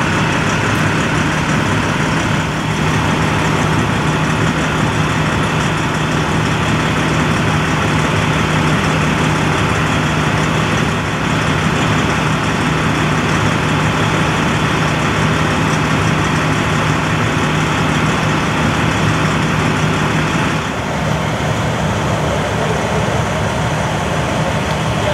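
Fire department emergency vehicles idling, a loud steady engine rumble with a constant low hum. About 21 seconds in the hum stops and the rumble becomes thinner.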